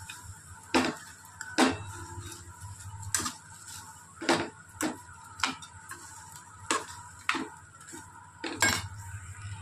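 Steel ladle clanking and scraping against a steel kadai as chopped okra is stirred while frying: about nine irregular knocks, with softer scrapes between them.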